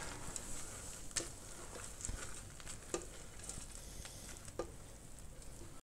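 Spatula stirring crushed roasted peanuts into hot jaggery syrup, cooked to the hard-crack stage, in a non-stick kadai. A faint sizzling hiss runs under the stirring, with a few sharp taps of the spatula against the pan.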